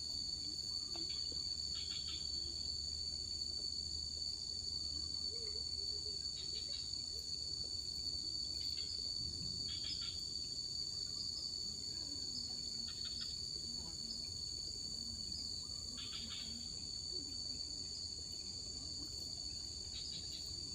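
Steady insect chorus: a constant shrill trilling at two high pitches, with brief chirps every few seconds.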